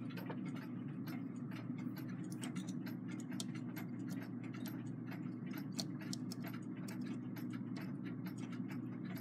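Faint, irregular small metallic clicks of brass clock wheels and arbors being handled and seated in the bottom plate of a clock movement, over a steady low hum.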